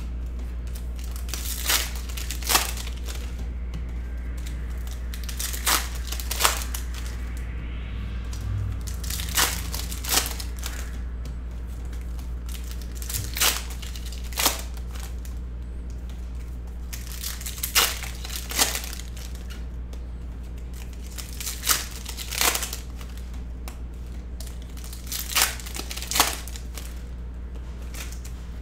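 Bowman University Chrome foil card packs crinkling and chrome trading cards being handled and sorted by hand. Short crisp clicks come mostly in pairs, roughly every four seconds.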